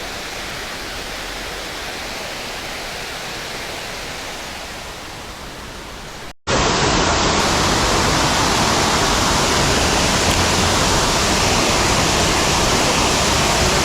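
Water rushing over a creek spillway, a steady noise. After a brief dropout about six seconds in, it comes back much louder and closer.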